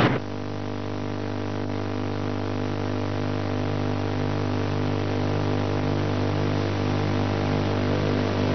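Steady electrical hum with a buzzy edge, getting slightly louder over the span.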